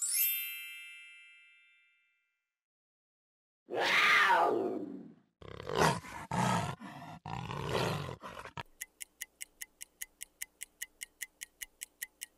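A chime rings out over about two seconds, then a jaguar calls: one long call falling in pitch, followed by a run of shorter calls. Near the end a countdown timer ticks about five times a second.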